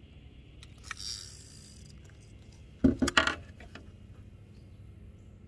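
Fishing rod and reel being handled in a boat: a short rasp about a second in, then a quick cluster of about three sharp metallic knocks, the loudest sound, just under three seconds in.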